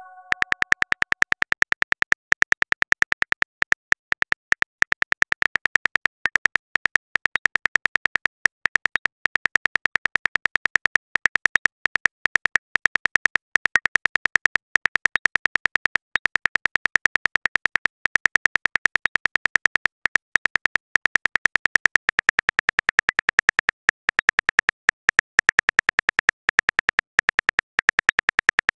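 Smartphone on-screen keyboard clicks tapping out a text message: a rapid run of short, even clicks, several a second, with brief pauses.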